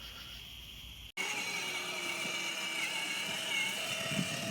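Faint room tone, then after an abrupt cut about a second in, a small motor running steadily with a high whine.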